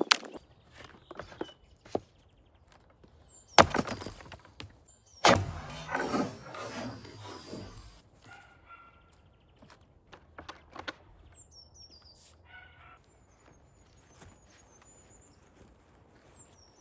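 Fiskars splitting axe striking plum wood, two heavy blows, the second followed by a couple of seconds of cracking and clattering as the wood gives way. Birds chirp in the second half.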